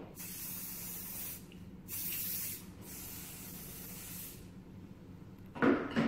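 Aerosol hairspray can spraying onto hair in three hissing bursts, the last one the longest. Near the end come a few louder knocks.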